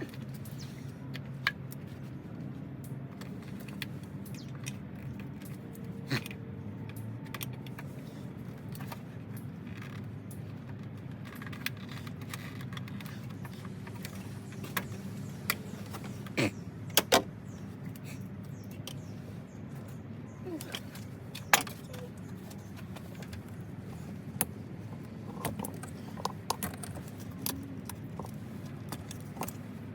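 Scattered metallic clinks and taps of hand tools and metal parts being handled while the engine bay is taken apart, over a steady low hum. The loudest knocks come about halfway through and again a few seconds later.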